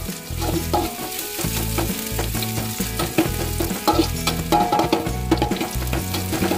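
Sliced shallots and garlic sizzling in hot oil in a wok, stir-fried with a metal spatula that scrapes and clicks against the pan.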